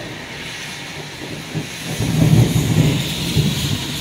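Thunder rolling: a low rumble that swells about two seconds in and keeps rolling, over a steady hiss.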